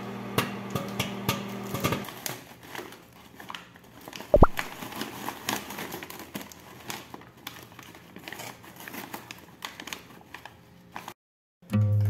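A microwave oven hums with popcorn popping inside for about two seconds, then stops. After a single knock, a paper microwave-popcorn bag crinkles and rustles as it is pulled open.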